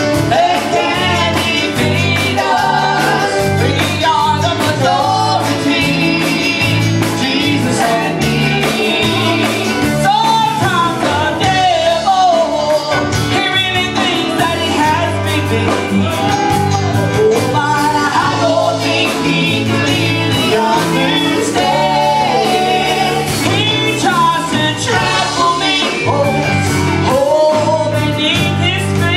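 A woman singing a gospel song with full instrumental band backing.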